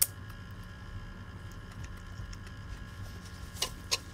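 Quiet eating by hand: a sharp mouth click as food goes in, then two small clicks near the end, over a steady low room hum.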